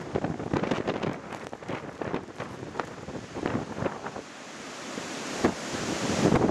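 Gusty snowstorm wind buffeting the microphone: an uneven rushing broken by repeated short thumps of gusts. It eases a little after the middle and builds again near the end.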